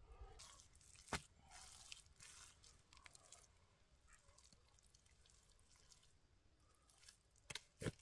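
Faint wet squelching of mud being scooped and worked by hand, with a sharp slap about a second in and two more near the end as mud is pressed into a wooden brick mold.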